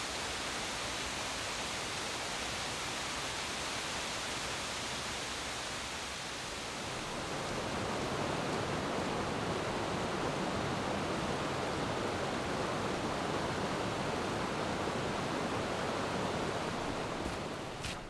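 Steady rushing noise of a waterfall. About six or seven seconds in it gives way to a slightly louder, fuller rush of a creek.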